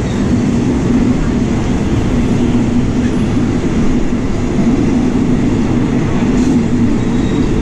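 Passenger train carriages rolling past along the platform, a steady low rumble of wheels on the rails.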